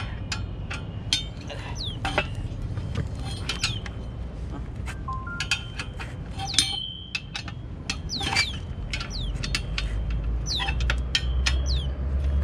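Light metallic clicks and clinks of a wrench working the clamp bolts on a dish antenna's pipe mount. A bird chirps over it again and again in short falling notes, and a low rumble builds near the end.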